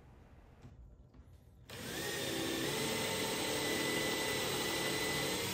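Electric drill starting a little under two seconds in and running steadily for about four seconds, boring countersunk holes for the frame's mounting screws.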